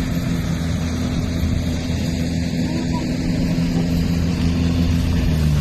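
An engine running steadily at an even speed, with a low, constant hum; its pitch shifts slightly right at the end.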